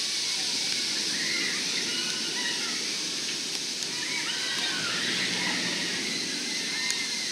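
A Vekoma suspended looping coaster train running along its steel track with a steady rushing noise. Riders' screams rise and fall over it.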